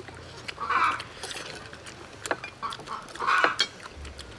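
Eating at a table: spoons clinking on plates, with two short slurps of food, one about a second in and another past three seconds.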